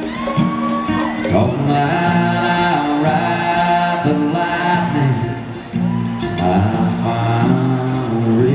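Live solo performance: a male voice singing over a strummed acoustic guitar.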